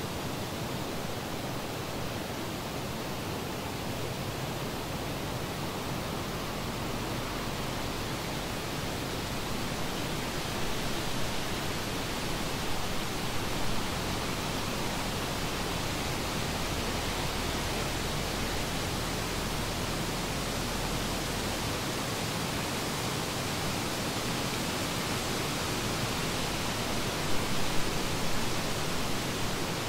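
Steady, even rushing noise with no tones or distinct events, a little louder from about ten seconds in.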